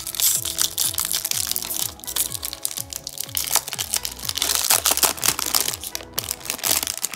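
Foil wrapper of a Topps Chrome baseball card pack crinkling and tearing as it is ripped open by hand, over background music.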